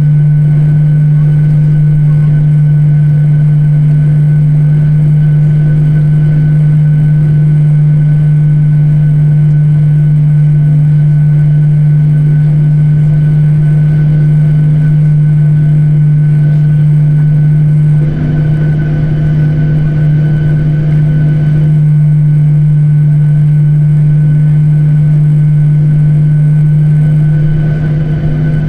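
Steady cabin drone of a jet airliner taxiing: a strong low hum with a thin, steady high whine above it, shifting slightly about two-thirds of the way through.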